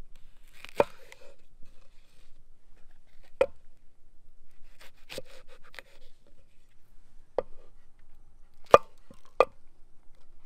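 A large knife slicing small sweet peppers and a serrano pepper on a thick wooden cutting block: about eight separate knife strokes knocking on the wood, unevenly spaced, the loudest near the end.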